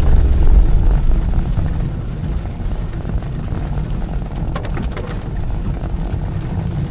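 Car driving, a low steady rumble of engine and road noise heard from inside the cabin; it is louder for about the first second, then eases to a lower, even level.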